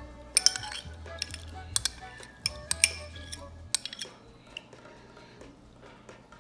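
Metal spoon clinking and scraping against a small glass bowl as minced ginger is tipped out into a ceramic bowl, about a dozen sharp clinks that stop a little before four seconds in. Soft background music underneath.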